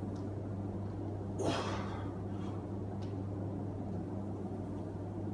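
A lifter's sharp, forceful breath about a second and a half in, during a heavy barbell back squat, over a low steady hum.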